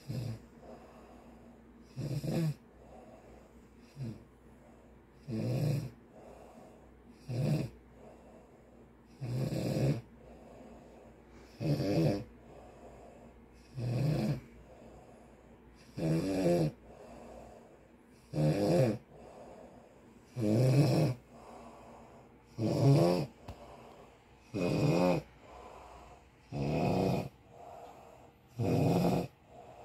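Snoring: a steady run of loud snores, about one every two seconds, with quiet breathing between them.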